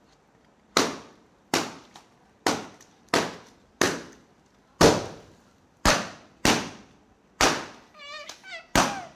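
Water-filled balloons popping one after another: about ten sharp pops, roughly one every second, each trailing off briefly. A short wavering, squeaky pitched sound comes in near the end.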